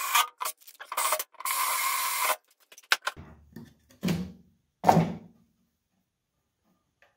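Cordless drill-driver running at a screw in a plywood panel, in three short bursts. Then a few knocks and thuds as a cut-out square of plywood is handled and lifted out.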